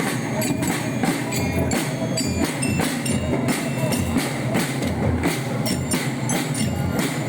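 Percussion-led music: drums with a steady beat, sharp knocking strikes and a deep bass drum.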